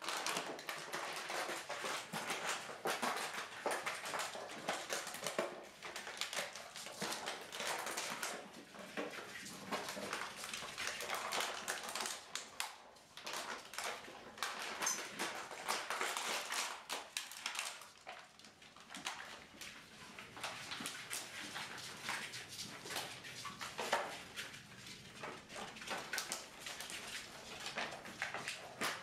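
A litter of five-week-old Rhodesian Ridgeback puppies scrambling over a vinyl tile floor: a dense, constant patter of small claws clicking and tapping on the tiles, with occasional puppy whimpers.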